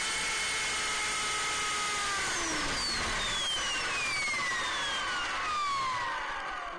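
MJX F45 radio-control helicopter's electric motors and rotor, heard from on board, whining steadily. About two seconds in they begin to wind down, the whine falling steadily in pitch as the helicopter sits landed and the throttle is cut.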